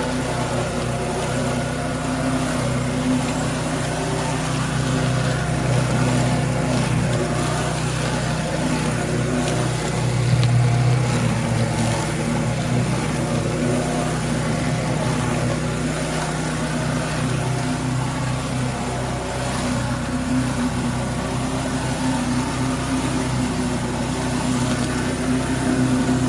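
Generac pressure washer engine running steadily under load, with the hiss of water spraying from a Powerhorse surface cleaner working over concrete. Briefly louder about ten seconds in.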